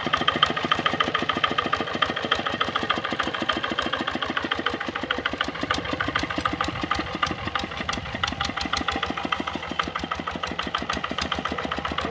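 Kubota RD65 single-cylinder diesel engine of a hand tractor running steadily with a rapid, even firing beat.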